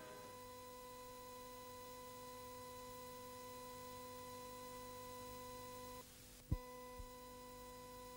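Low, steady electrical hum made of a few fixed tones, with a brief dip about six seconds in, then a single short thump and a fainter knock.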